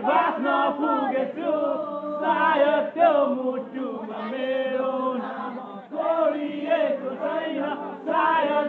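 A group of young men singing and chanting together, several voices at once without a break.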